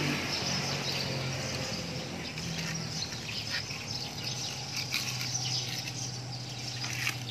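Outdoor ambience of birds chirping and insects, with many short high chirps over a steady background.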